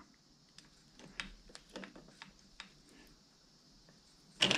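Faint, irregular small clicks and rustles of a thin stainless steel cable and crimp being handled and threaded by hand.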